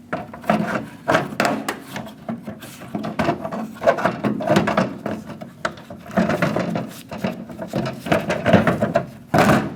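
Irregular clicks, knocks and rubbing of plastic and metal parts being handled, as a door handle assembly is worked into place.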